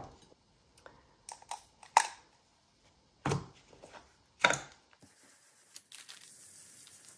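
A few sharp plastic knocks and clicks as a Distress Oxide ink pad is handled, opened and set down on the table, then from about five seconds in a soft, steady scratchy rubbing as ink is dabbed through a stencil onto paper with a blending tool.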